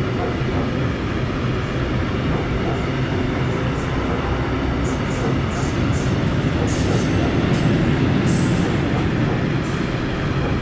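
Freight train of tank wagons rolling past, its steel wheels running steadily on the rails. A run of short, high-pitched sounds comes between about five and nine seconds in.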